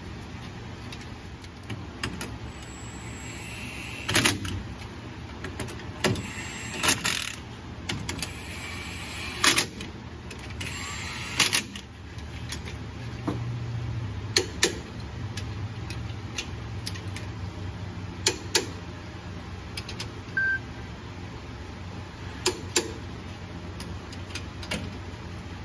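Hand tools working on a Ford Super Duty's rear differential as the carrier and bearing caps are fitted: a series of sharp metallic knocks and clicks at irregular intervals, one every one to four seconds, over a faint low hum.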